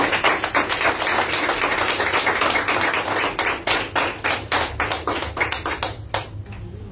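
A small group of people applauding, the clapping thinning out to a few last claps about six seconds in.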